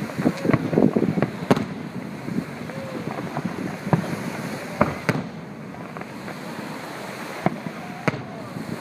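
Fireworks going off: a string of sharp bangs and pops at irregular intervals over a steady rushing background, the loudest about a second and a half in and at about five seconds.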